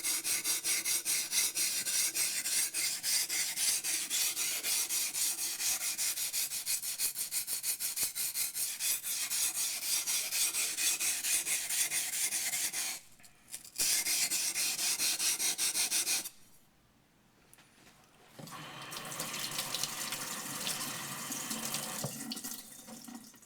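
Yanagi blade scraped back and forth on a coarse Nubatama waterstone in quick, even grinding strokes, broken by a brief stop and then a longer pause. Near the end comes a steady splashing of running water, as the blade or stone is rinsed.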